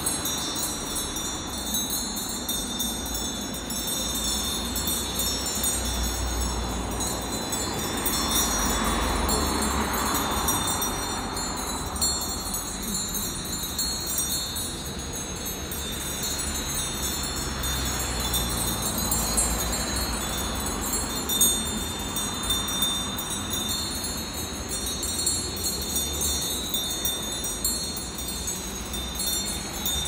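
Bells on a grazing flock of sheep ringing and clinking continuously as the sheep move and feed, with a low rumble of wind on the microphone.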